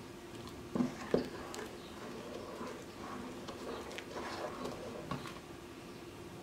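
Wooden spatula stirring rice and milk in a large stainless steel pot, with soft sloshing and a few light knocks against the pot.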